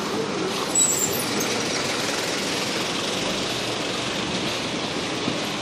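Road traffic noise, with a bus running close by and a brief high squeal about a second in.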